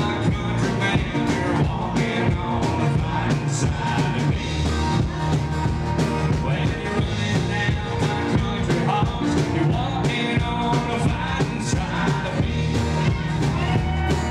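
Live band playing a song: two strummed acoustic guitars, electric bass and a drum kit with a steady beat, with men singing into microphones.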